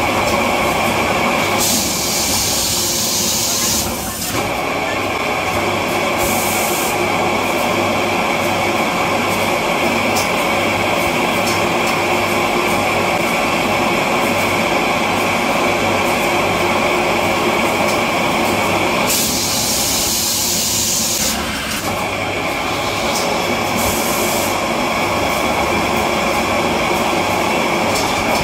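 Automatic tissue-roll packing machine running: a steady mechanical clatter with a low repeating pulse. Several bursts of compressed-air hiss, each lasting one to two seconds, come a couple of seconds in and again about two-thirds of the way through.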